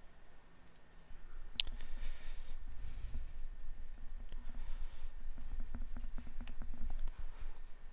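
Computer keyboard typing: irregular key clicks, thickest near the end, over a low rumble that starts about a second in.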